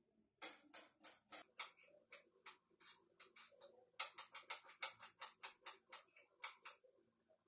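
Kitchen knife chopping an onion on a cutting board: a string of light, sharp taps, spaced out at first and then quicker, about four a second, in the second half before stopping.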